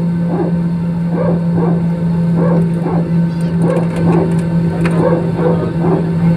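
Airliner cabin noise while the jet moves on the ground: a steady low engine hum, with a rapid string of short higher-pitched pulses, about three a second, over it.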